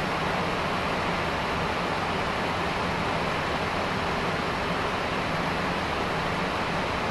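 Steady rushing noise on a Boeing 767-300ER flight deck in flight: an even hiss of air that does not change.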